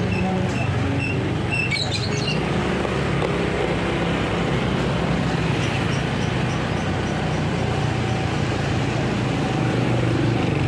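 Motor scooter engines running steadily at low speed, a low hum over road and traffic noise, with a few faint high chirps in the first two seconds.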